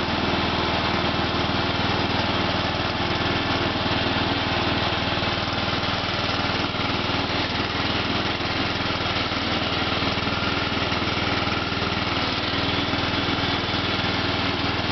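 John Deere LA110 lawn tractor engine running steadily under way, a constant hum with no change in speed.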